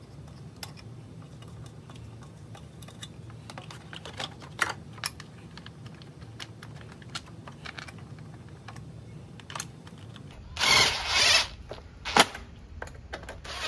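Scattered light clicks and knocks of parts and bolts being handled and fitted while the lawnmower engine is reassembled, then a short, louder burst of noise about eleven seconds in and a sharp click a second later.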